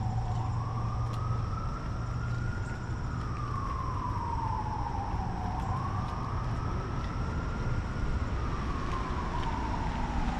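Emergency-vehicle siren in wail mode, rising and falling slowly in pitch through two full sweeps of about five seconds each, over a steady low rumble.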